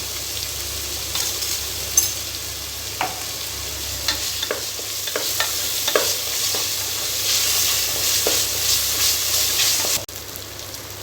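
Tomatoes and masala paste sizzling in hot oil and ghee in a pressure cooker, with a ladle scraping and knocking against the pot as it is stirred. The sizzle drops abruptly near the end.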